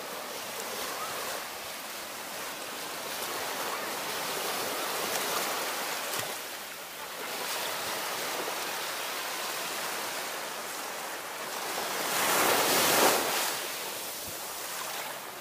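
Small waves breaking and washing up the sand close to the microphone, a steady rush of surf. About twelve seconds in, a louder surge of water rushes in and foams up around the microphone.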